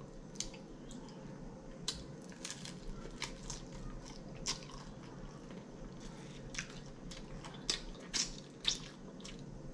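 Close-miked mouth sounds of eating an air-fried chicken wing: biting and chewing with irregular wet smacks and clicks, the loudest few near the end.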